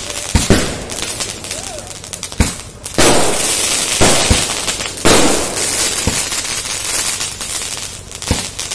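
A 200-shot night-flower sky-shot repeater cake firing: sharp bangs every second or so, each trailing off into a fading crackle as the shells burst.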